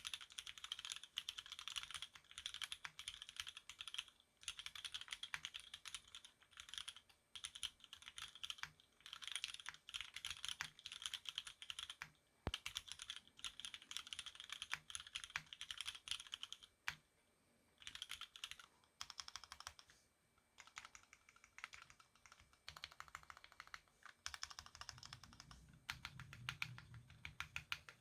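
Typing on a gasket-mount mechanical keyboard with lubed Cherry MX Black linear switches: fast runs of keystrokes with short pauses between them, and deeper thocks near the end.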